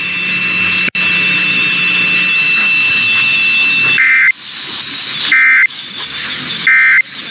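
Radio hiss with a steady high whistle, then, about four seconds in, three short bursts of Emergency Alert System SAME data tones, about a second and a half apart: the end-of-message code that closes an alert broadcast.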